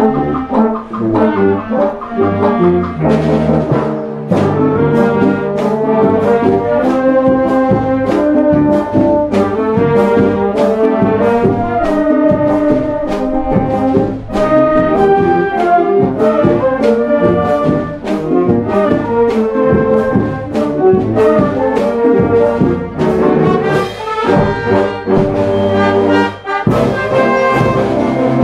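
Children's wind band playing live: brass and saxophones carry the melody over a steady drum and cymbal beat.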